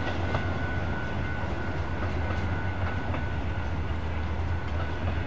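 Amtrak passenger train's bilevel cars rolling along the rails: a steady low rumble with scattered clicks and a thin, steady high whine above it.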